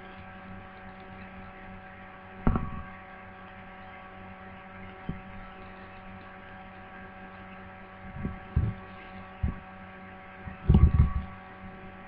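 Steady electrical hum from the recording chain, with a few short, dull thumps over it: one early, three spaced a little apart later, and a quick cluster near the end.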